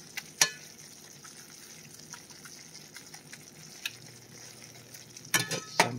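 Chipped beef gravy simmering and sizzling in a cast iron skillet, a steady high hiss, while a metal slotted spatula clicks sharply against the pan about half a second in and scrapes it twice in quick succession near the end.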